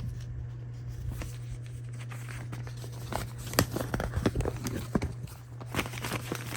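Paper rustling and crackling as a folded multi-language regulatory leaflet is unfolded and handled, in a run of sharp crinkles from about halfway in, over a steady low hum.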